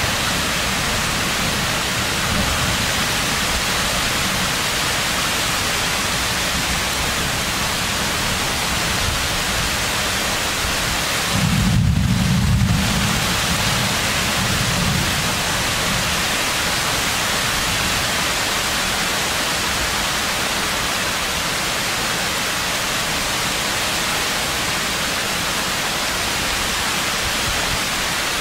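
Heavy rain in a thunderstorm, a steady hiss throughout. About halfway through, a low rumble of thunder swells for a couple of seconds.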